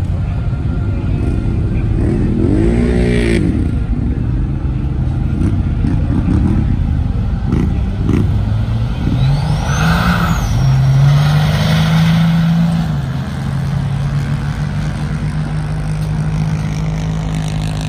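Pickup truck engine at a drag strip: a quick rev up and back down about two seconds in, then from about eight seconds a steady engine note that climbs and holds for several seconds at full throttle, loudest near the middle, before easing off.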